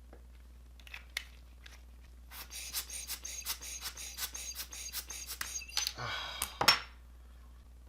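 Small hard objects clicking and rattling on a workbench: a few clicks, then about three seconds of fast, even clicking with a thin metallic ring, a brief hiss, and a sharp knock near the end.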